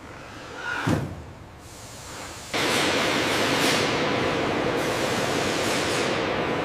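A dull thump about a second in. At about two and a half seconds a steady hiss of factory-hall noise with a faint steady hum starts abruptly and runs on.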